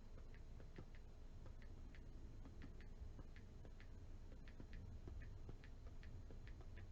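Faint, irregular light ticks, a few a second, of typing on an iPad's touchscreen keyboard while signing in.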